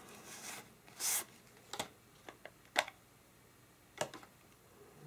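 Handling noise of a small pocket digital scale: a short rustle about a second in as it comes out of its leather case, then a few sharp, separate clicks and taps as it is set down and its buttons are pressed.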